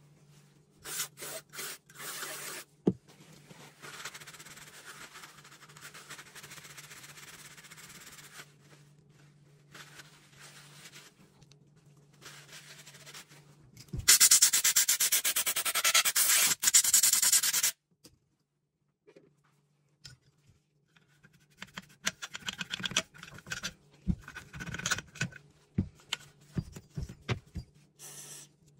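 Cleaning a Beretta shotgun's receiver and barrel: rubbing and handling noises, then a loud steady hiss of a compressed-air blow gun for about four seconds midway. Near the end come many short scraping and scrubbing strokes of cleaning work on the metal.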